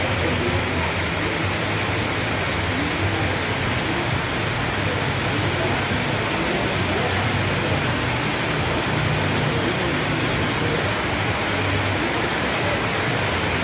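Heavy rain falling in a steady, dense hiss of downpour.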